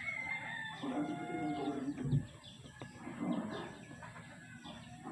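Chickens calling in the background, with small birds chirping, and a single low thump about two seconds in.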